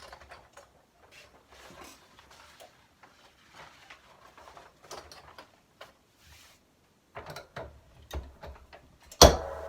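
Rustling and light clicks of materials being handled on a work table, then a louder run of clicks and one loud clunk near the end, followed by a brief ringing.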